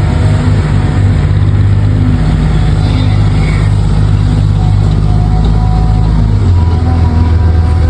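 Truck engine sound running steadily at a low rumbling note, which shifts lower about six and a half seconds in.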